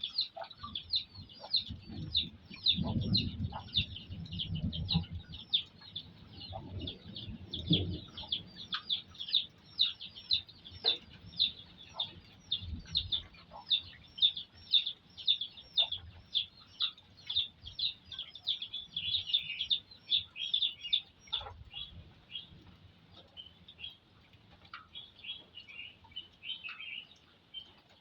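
A bird chirping over and over in short, high, falling notes, about two or three a second, thinning out after about twenty seconds. Low rumbling thuds sound during the first several seconds.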